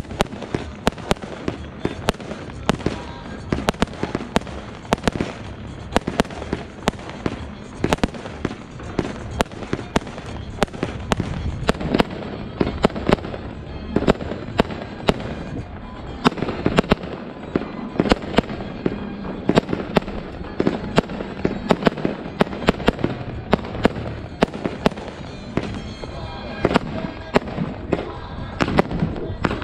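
Aerial fireworks display firing: a rapid stream of sharp bangs, several a second, from rising comets and bursting shells, growing louder and denser after about twelve seconds.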